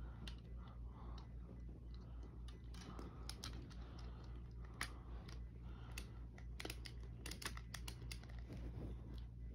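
Scattered light clicks and taps, irregular and thickest in the middle, over a steady low hum.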